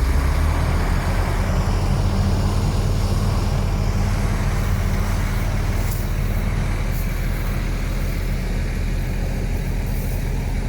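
Heavy diesel engine of earthmoving machinery running steadily, slightly louder in the first few seconds, with a few faint ticks later on.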